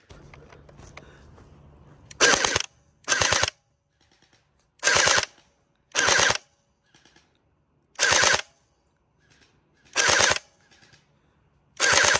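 Gel blaster firing seven short bursts of rapid shots, each about half a second long, one to two seconds apart.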